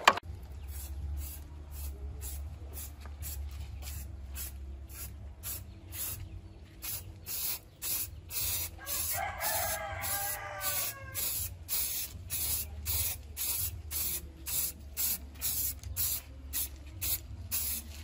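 Aerosol spray paint can hissing in many short bursts, about two a second, as white paint goes onto plastic parts. A rooster crows once, about nine seconds in.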